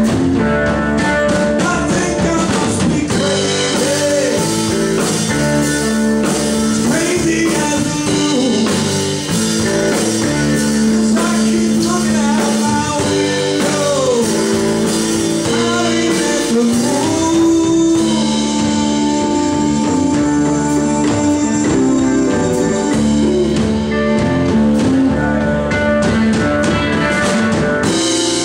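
Live blues band playing: electric guitar, bass, drums and keyboard, with notes sliding in pitch.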